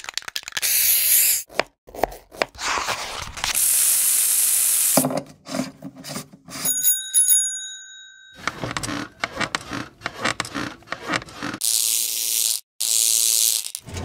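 A rapid sequence of short Foley sound effects cut one after another: rustles, scrapes and sharp clicks, a bright hiss, and a single ringing bell tone fading out about seven seconds in, ending with two similar noisy strokes.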